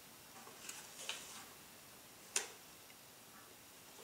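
Small metal clicks and rattles from an old folding bellows camera being worked by hand, its front bed and struts clicking into place: a couple of soft clicks in the first second and one sharp click about two and a half seconds in.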